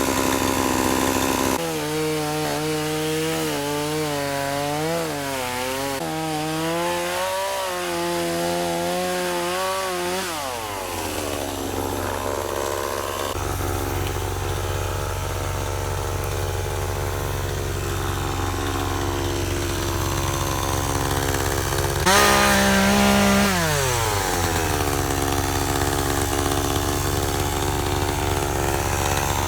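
Chainsaw cutting through a large log at high revs, its pitch wavering under load, then the revs fall away about ten seconds in. A low steady engine hum follows, with one more brief rev of the saw that rises and falls about two-thirds of the way through.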